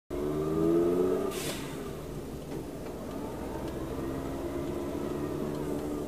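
Car engine heard from inside the cab, accelerating with its pitch rising. The pitch breaks off about a second in, with a brief hiss, then climbs steadily again.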